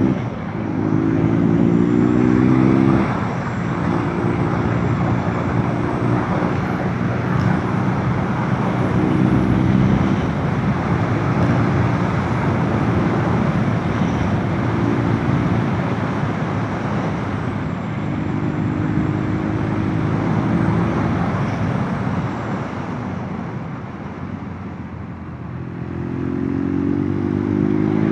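Motorcycle engine under way with a steady rush of noise. The engine note climbs as it accelerates at the start, holds fairly steady through the middle, eases off briefly, then climbs again near the end.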